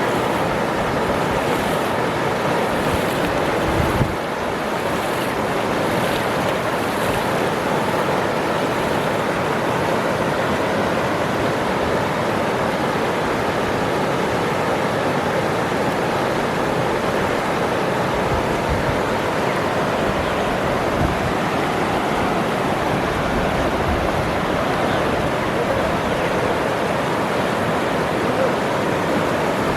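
Waterfall rushing: a steady, unbroken roar of falling water, with a brief knock about four seconds in.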